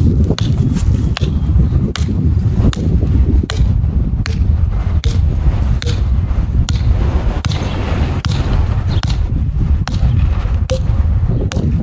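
PVC pipe being struck in a steady beat, a sharp knock about every second, over heavy wind rumble on the microphone.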